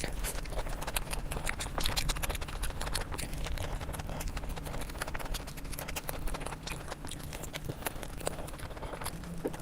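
Close-miked eating sounds: a dense, irregular run of wet chewing and mouth clicks.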